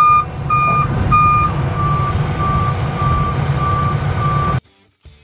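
Aerial ladder truck's outrigger warning alarm beeping about twice a second over the low rumble of the running diesel engine, as the stabilizer jacks are raised. The beeps turn slightly lower and softer about a second and a half in, and all sound cuts off abruptly near the end.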